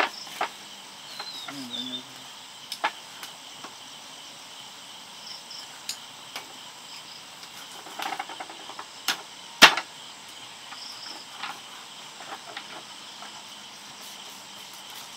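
Scattered clicks and knocks of chopsticks and bowls during a meal, with one sharp knock about ten seconds in, over insects chirring steadily.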